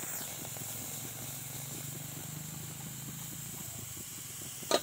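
Turmeric-leaf parcel of fish hissing and sizzling steadily in a hot, dry iron karahi over a gas flame. A short sharp knock sounds near the end.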